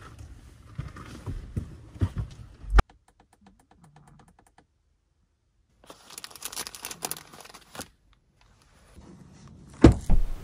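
Plastic food wrappers and bags crinkling as they are handled. Earlier come a few knocks and a sharp click, and just before the end there is one loud clunk as the car's tailgate is opened.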